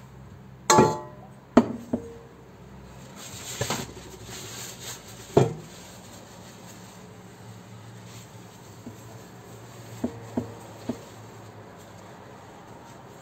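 A glass mixing bowl is set down on a kitchen counter with a ringing clink. A few more knocks and clinks of kitchenware follow, with a short rustle in between and three light clicks near the end.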